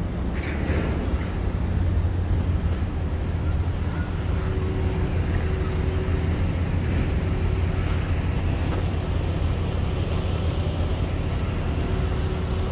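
Steady low outdoor rumble of wind and distant traffic, with a faint steady hum a few seconds in and again near the end.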